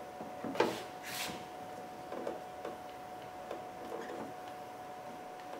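Plastic parking-light housing being worked into place by hand: a sharp plastic click, a short scrape, then several light clicks and taps, over a faint steady hum.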